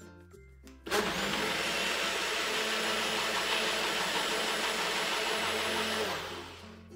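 A personal bullet-style blender's motor starts suddenly about a second in and runs steadily for about five seconds as it purées parsley, green apple, cucumber and lemon with water into a smooth green drink. Near the end it winds down and fades out as the cup is released.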